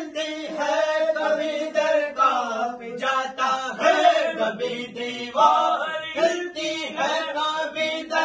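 Male voices singing a manqabat, a devotional chant in praise of Ali, in phrases of a second or two with short breaks between them.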